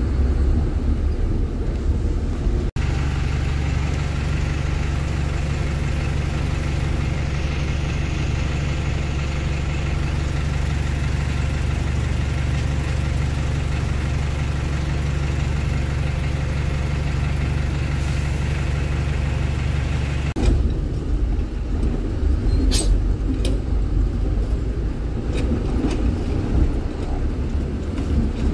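A small dump truck's engine runs steadily under way, a low even drone. It changes abruptly twice: about three seconds in, and again about two-thirds of the way through. After the second change it is rougher and more uneven, with a few sharp clicks.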